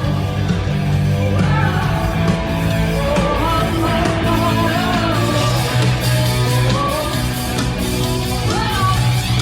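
Three-piece rock band playing live at a sound check: heavy distorted guitar, bass and drums with a sung vocal line, heard from far back in a large, empty arena.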